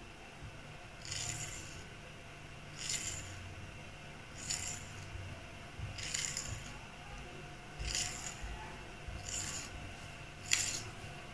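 Knife blade drawn through thin-rolled wheat parotta dough and scraping the stone countertop beneath, once for each slit cut. The short scrapes come about every second and a half, seven in all.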